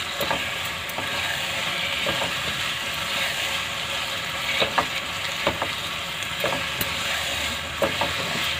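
Carrot halwa sizzling steadily in a non-stick pan as a plastic spatula stirs and presses it, with scattered scrapes and taps of the spatula against the pan. The sugar's released water is cooking off and the halwa is thickening.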